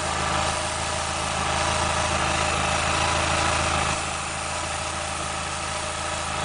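Dodge SRT-4 Neon's turbocharged 2.4-litre four-cylinder engine idling steadily during a vacuum-leak check. It grows a little louder for a few seconds, then eases back about four seconds in.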